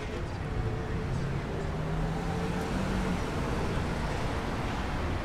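City street traffic: vehicles running past, with a low engine hum swelling for a couple of seconds around the middle.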